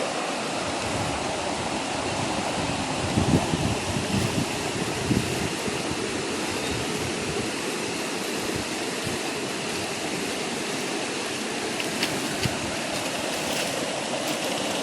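Fast-flowing river water rushing steadily, with a few low thuds about three to five seconds in.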